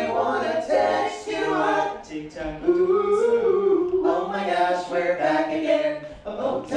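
Five-man male a cappella group singing a pop song in close barbershop-style harmony, with no instruments; a long held note swells and falls about three seconds in.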